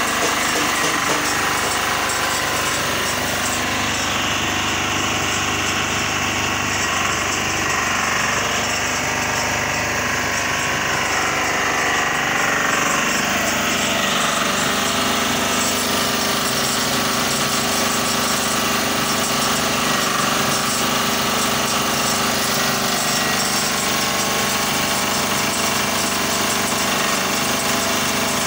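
Diesel engine driving an interlocking clay brick making machine, running steadily at an even speed throughout.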